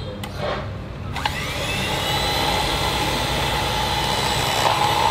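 Electric hand mixer switched on about a second in: its motor whine rises quickly as it spins up, then runs steadily while the beaters whip egg yolk in a plastic cup for Vietnamese egg coffee. The tone shifts slightly near the end.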